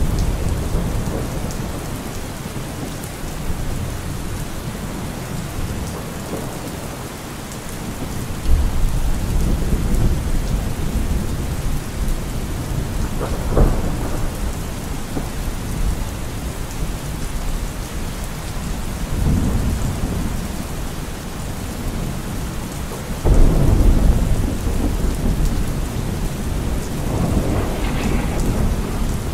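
Thunderstorm: steady rain with thunder rumbling several times. There is a low roll about eight seconds in, a sharper crack near the middle, and the loudest rumble about two-thirds of the way through, with another swelling near the end.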